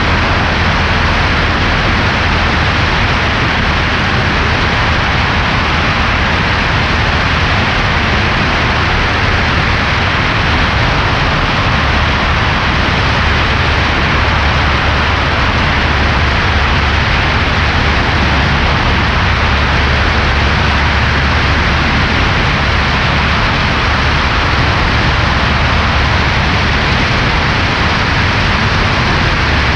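Cessna 140A's piston engine and propeller running steadily, a loud, even drone with a low hum under broad rushing noise, the engine's newly installed cylinder being broken in.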